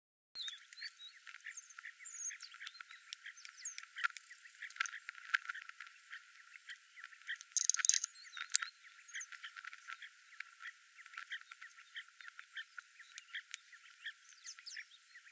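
Dense natural chorus of many short bird chirps and calls, with a louder flurry of calls about eight seconds in; no low sounds at all.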